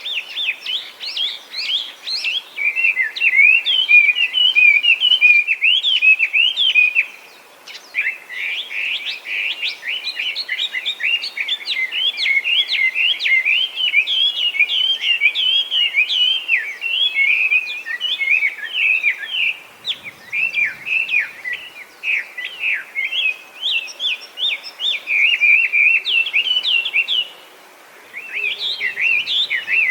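Chinese hwamei singing: a loud, fast, unbroken run of varied whistled notes that swoop up and down, with a brief pause about a quarter of the way through and another near the end.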